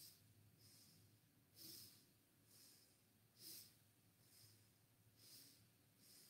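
Faint breaths of a person doing seated spinal twists, paced with the movement: a soft, hissy breath about once a second, every other one louder.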